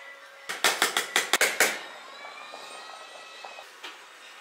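A quick run of sharp clinks from a metal spoon against a pot or container of soybean paste, lasting about a second. After it comes a quieter, steady bubbling from a pot of doenjang stew at the boil.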